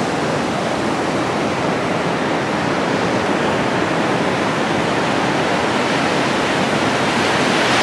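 Ocean surf: waves breaking and washing up a sandy beach, a steady loud rush that swells slightly near the end.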